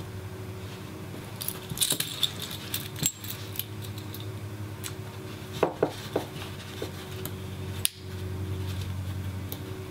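Small metal clicks and taps of a small screwdriver working the side set screw of a GX16 circular connector and handling its metal shell, in scattered bursts. A steady low hum runs underneath.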